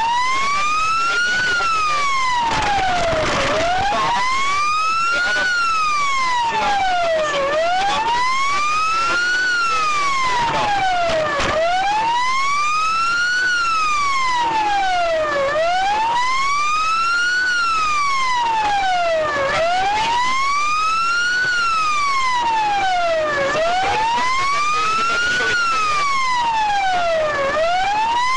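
Police siren wailing, its pitch rising and falling slowly and evenly, about one rise-and-fall every four seconds.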